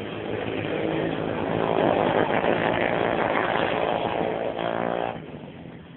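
A small engine running close by, growing louder over the first two seconds, holding steady, then cutting off suddenly about five seconds in.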